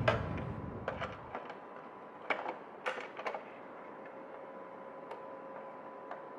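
Irregular light clicks and taps of a small toy car and its packaging being handled, clustered in the first three seconds and sparser after.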